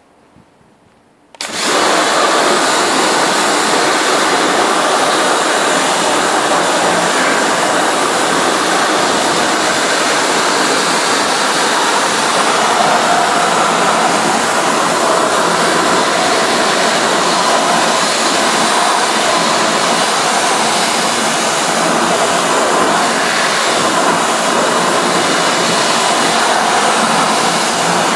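High-pressure washer jet spraying water onto a car's alloy wheel: a loud, steady hiss that starts suddenly about a second and a half in and holds unchanged.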